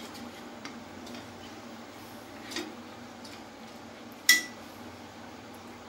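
Wooden spatula stirring a thick poppy-seed and mustard paste in a kadai, with faint scraping and light taps, and one sharp metallic clink about four seconds in.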